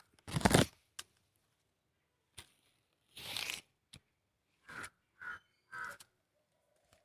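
Short bursts of rustling and handling noise, the loudest about half a second in, as the phone brushes through the guava plant's leaves and branches. Near the end a bird calls three times, about half a second apart.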